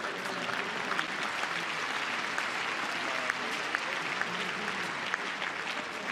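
Tennis arena crowd applauding a point just won, a dense patter of many hands clapping that builds over the first second and then holds steady.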